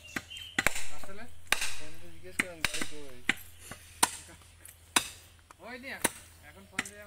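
Large butcher's knife chopping beef on a wooden log chopping block: about ten sharp chops at uneven intervals, one or two a second. A hissing noise swells and fades twice in the background.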